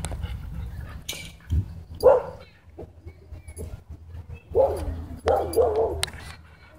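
Dogs vocalizing in play while tugging on a rope toy: a short bark about two seconds in, then two longer calls in the second half whose pitch wavers up and down.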